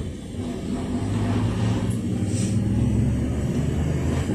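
GAZelle Next minibus's Evotech 2.7-litre four-cylinder engine running, with road noise, heard from inside the passenger cabin. The low drone gets louder about a second in as the minibus drives on.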